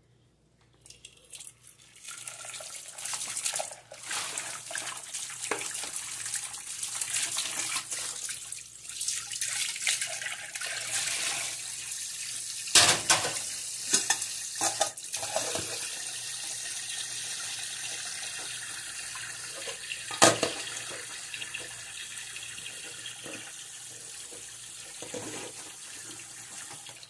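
Tap water running into a stainless steel sink as dishes are rinsed, starting a couple of seconds in and then steady, with a few sharp knocks, the loudest about halfway through and about three quarters through.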